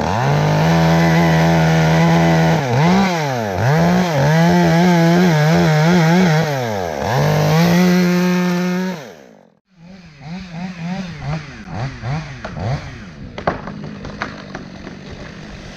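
Two-stroke chainsaw running at full throttle through a cut, its revs dipping and recovering again and again as the chain loads in the wood. About nine seconds in it drops away sharply, then runs on quieter with its pitch wavering.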